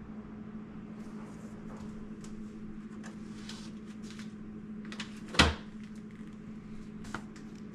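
Items being handled and put away in a refrigerator: scattered light clicks and rustles, and one loud knock about five seconds in as something is set down or pushed into place. A steady low hum runs underneath.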